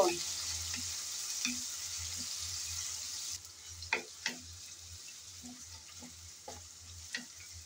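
Sliced onion and garlic sizzling in hot oil in a metal kadai, stirred with a wooden spatula that scrapes and knocks against the pan now and then. The sizzle drops down noticeably about three and a half seconds in.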